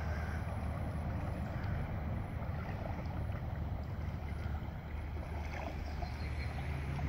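Steady low rumble of wind on the microphone, with a faint outdoor hiss.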